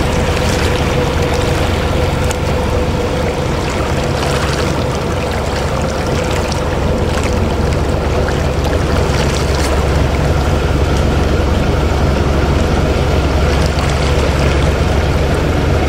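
A fishing boat's engine running steadily, a constant low drone with a steady hum above it, over a rush of wind and water.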